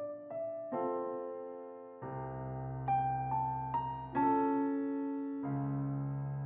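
Background music: a slow, gentle piano piece, single notes and chords struck every half second or so over held bass notes.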